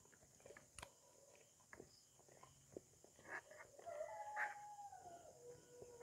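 Faint clicks and scrapes of a spoon and fork on a plate of rice, with a rooster crowing about four seconds in, one drawn-out call that falls in pitch over about a second and a half.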